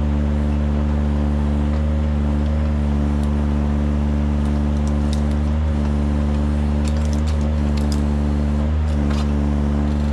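Kranman Bison 11 000 forwarder's engine running steadily under hydraulic crane work, dipping briefly twice as the crane takes load, with a few faint light clicks from the crane and harvester head.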